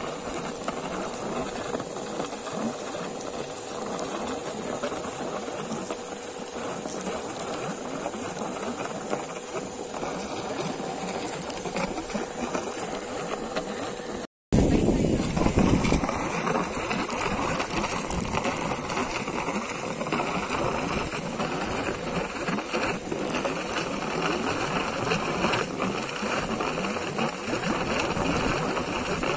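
Old air compressor running steadily while the well's discharge pipe sputters out air and water: the well being blown clean with compressed air. The sound cuts out for an instant about halfway and comes back louder.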